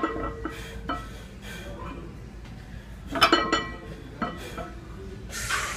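Metal clinks and clanks of iron weight plates and barbells, a few separate strikes that each ring briefly, with the loudest cluster about three seconds in.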